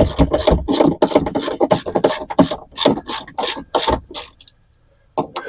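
Hand ratchet wrench clicking in quick, uneven strokes as fasteners are run in on a car door. The clicking stops about four seconds in.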